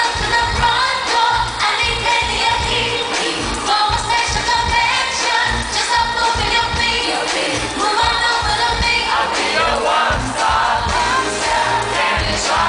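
Live pop song over a concert sound system: a steady electronic beat with a woman singing.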